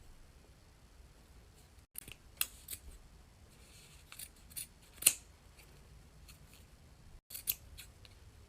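Scissors snipping through the mesh net of a squishy stress ball, cutting it off: a series of short, sharp snips at irregular intervals, the loudest about five seconds in.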